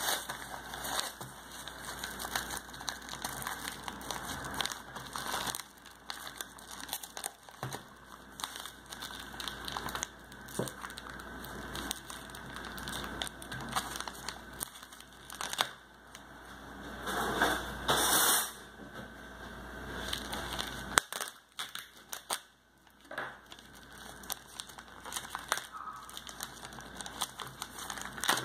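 Plastic shrink-wrap on a book crinkling and crackling as hands handle it, in irregular bursts with a louder flurry a little past the middle and a short lull after.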